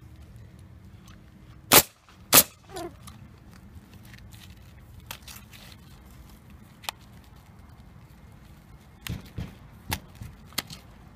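Pneumatic roofing nailer firing two sharp shots about half a second apart, driving nails through asphalt ridge cap shingles. Lighter clacks and knocks near the end as the stiff cap shingles are handled and laid on the ridge.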